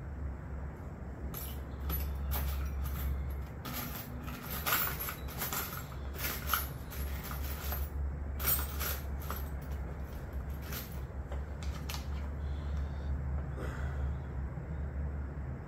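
Small metal Allen keys clinking and rattling against each other as they are sorted through, in a run of sharp clicks for most of the first eleven seconds. A steady low hum underneath.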